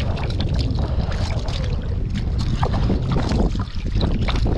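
Heavy wind buffeting the microphone in a steady low rumble, over water splashing in short irregular spurts.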